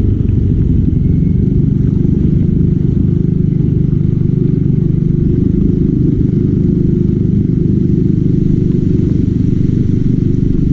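Motorcycle engine running steadily on the move: a loud, even low rumble.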